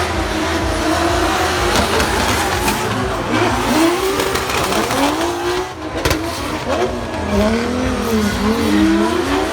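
Drift cars' engines revving up and falling back over and over, two engines at once at times, with tyre squeal from the sliding tyres.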